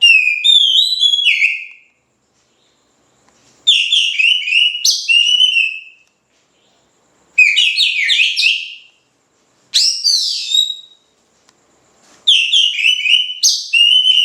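Oriental magpie-robin (kacer) singing loudly in full song, five phrases of rapid, sweeping whistled notes, each a second or two long with short silent pauses between them.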